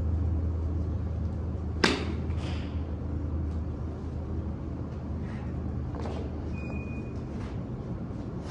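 A golf iron striking a range ball off a hitting mat: one sharp click about two seconds in. Fainter clicks follow later, over a steady low rumble.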